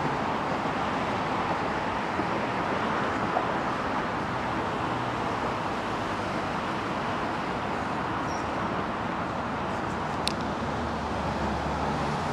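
Steady traffic noise from cars on a highway, tyres and engines blending into a constant hiss. A brief sharp click about ten seconds in.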